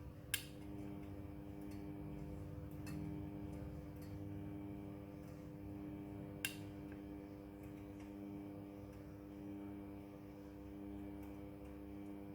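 Midea front-loading washing machine running with a steady electric hum, and two sharp clicks, one just after the start and one about halfway through.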